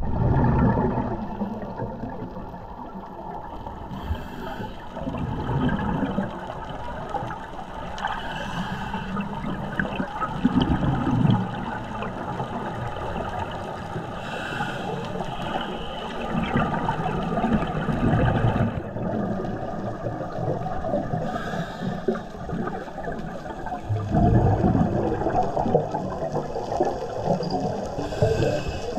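Underwater sound of a scuba diver breathing through a regulator: a bubbling rush of exhaled air swells every few seconds over muffled water noise, with a short hiss of inhalation between breaths.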